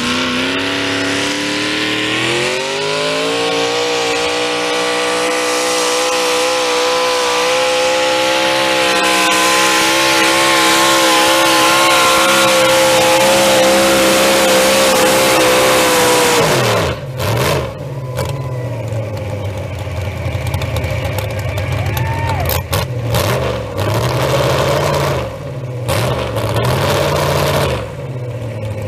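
Modified pulling tractor's engine run up to full power as it launches and held there, strained and steady, while it drags the weight sled. About sixteen seconds in it cuts back sharply to a lower, uneven running with a few short rises and falls in pitch as the pull ends.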